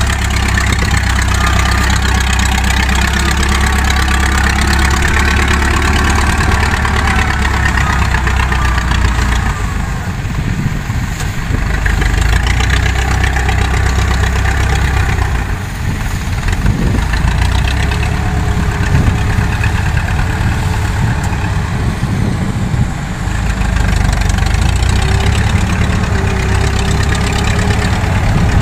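Engine of a tracked rice-transport carrier running steadily as the loaded machine crawls across the harvested field.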